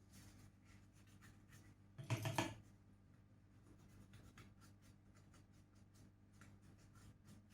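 Faint small clicks and scratching of hand tools working on a laptop motherboard during socket soldering, with one brief louder scrape about two seconds in, over a steady low electrical hum.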